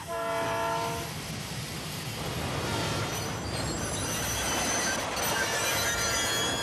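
Train rushing along the tracks, a loud steady rumble and rush. From about three seconds in, thin high squealing of steel wheels on the rails joins it.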